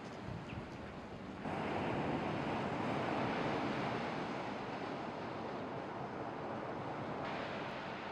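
Rough sea surf breaking on a beach, heard as a steady rushing noise with wind on the microphone. It comes in suddenly about a second and a half in, after a quieter stretch of outdoor ambience with a few faint knocks.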